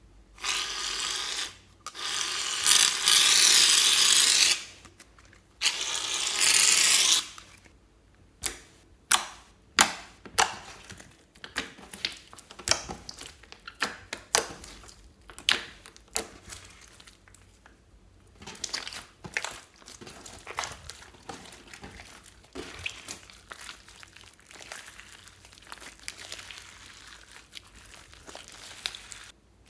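Hands crinkling and tearing plastic packaging in two loud spells, followed by a long irregular series of sharp sticky pops and clicks from slime being pressed and stretched, fading somewhat toward the end.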